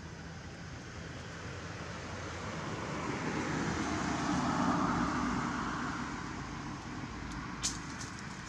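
A motor vehicle passing by, its noise swelling to a peak about halfway through and then fading away. A single sharp click near the end.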